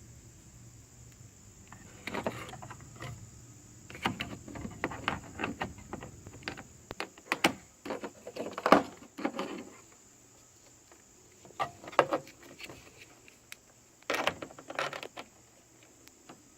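Irregular clicks, knocks and rattles of small hard objects being handled, in several bursts with pauses between them.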